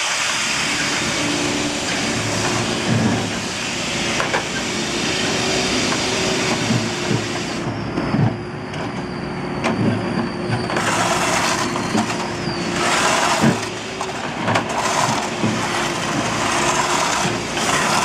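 Heavy road-works machinery running: a steady diesel engine hum and hiss, with repeated knocks and clanks.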